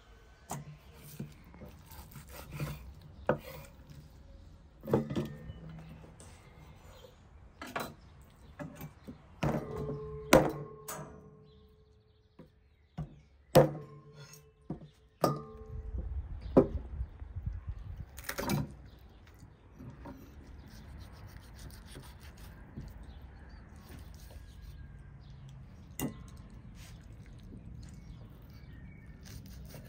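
A cleaver and knife cutting lamb head meat and bone on a wooden chopping board: irregular sharp chops and knocks against the wood, a few with a short metallic ring. In the second half the chopping thins out to quieter cutting and scraping with an occasional knock.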